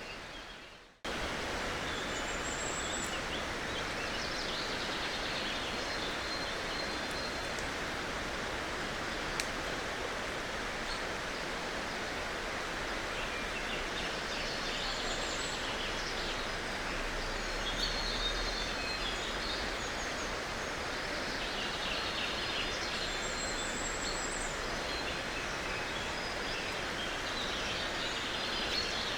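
Outdoor nature ambience: a steady rushing noise with birds chirping now and then, starting about a second in.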